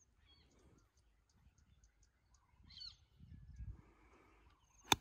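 Quiet open-air background with a single short bird call partway through, then near the end one sharp click of a golf club striking the ball on an approach shot.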